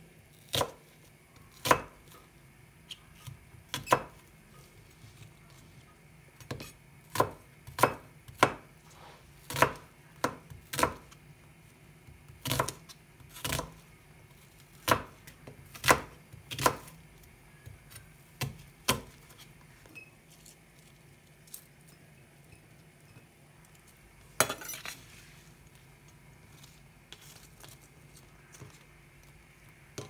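Kitchen work clatter: irregular sharp knocks and clinks of utensils, dishes and a knife on hard surfaces, about one or two a second, thinning out after the middle, over a faint steady low hum.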